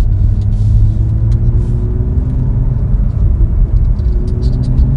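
BMW M2's 3.0-litre turbocharged straight-six, heard from inside the cabin while accelerating. The engine note rises, drops back around the middle as the gearbox shifts up, then rises again.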